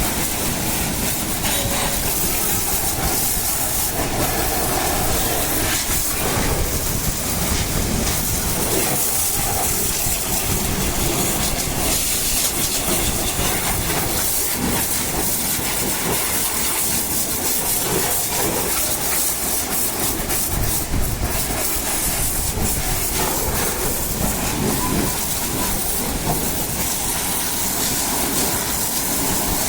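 High-pressure water spray hissing steadily against a backhoe loader's metal bodywork, with a steady mechanical rumble underneath.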